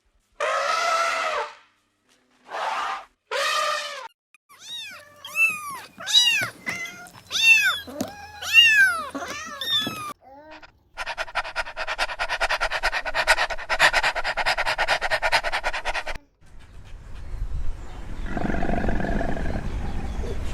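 A series of different animal calls: three drawn-out pitched cries, then a run of short chirps that rise and fall, then a fast buzzing rattle lasting about five seconds, and a lower, rougher call near the end.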